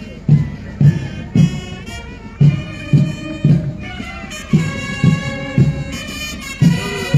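Marching band music for a parade march-past: a bass drum beats about twice a second under a melody on wind instruments.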